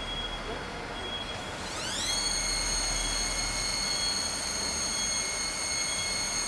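CNC high-speed plate drilling machine spinning up: about two seconds in, a whine rises quickly in pitch and then holds as a steady high whine over the machine's running noise.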